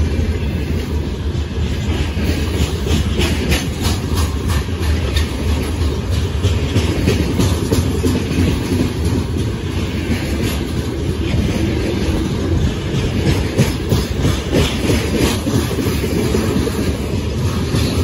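Loaded freight train wagons rolling past close by at speed: a loud, steady rumble of steel wheels on rail with a rapid clickety-clack of wheelsets crossing rail joints.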